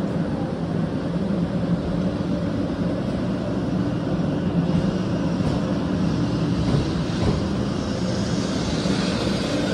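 JR West 500 series Shinkansen pulling out of the platform and gathering speed: a steady low hum, with a hiss that grows louder over the second half.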